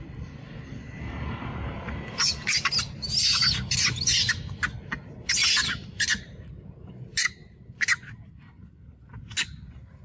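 A macaque screaming in distress during a fight with another macaque: a run of harsh, shrill shrieks, about a dozen, starting about two seconds in and dying out near the end.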